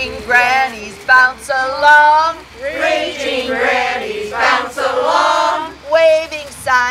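A small group of women singing a song together.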